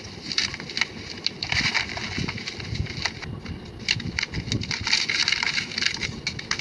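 Blocks of gym chalk being crushed and crumbled, a dense run of dry crunches and crackles, played back sped up. The crackling thickens about two seconds in and again through the second half.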